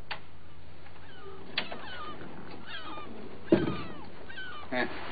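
A wooden door opened by hand, with a small click a little over a second in and a heavy wooden thud about three and a half seconds in. Short, high animal chirps sound on and off in the background.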